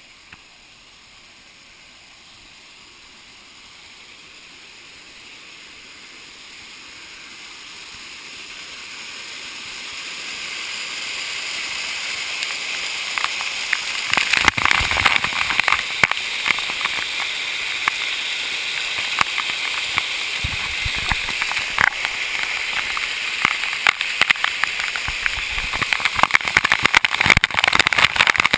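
Waterfall rushing, growing steadily louder over the first twelve seconds. After that it stays loud and close, with splashing crackles on top of the roar.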